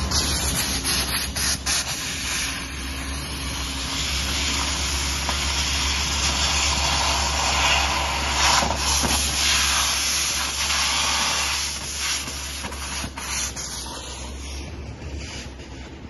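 Construction-site ambience: a steady rushing, hiss-like noise with scattered knocks and clicks, easing off somewhat over the last few seconds.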